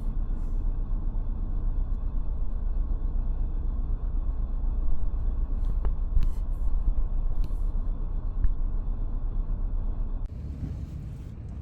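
Vehicle engine idling with a steady low rumble, heard from inside the vehicle while it waits in a drive-up line, with a few faint clicks. The rumble drops away about ten seconds in.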